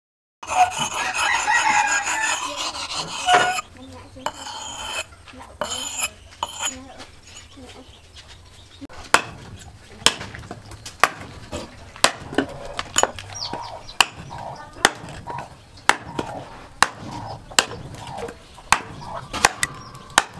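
A rooster crows loudly for about three seconds at the start. From about nine seconds in, a freshly forged axe chops into a dry wooden stick resting on a wooden block, with sharp strikes about once a second.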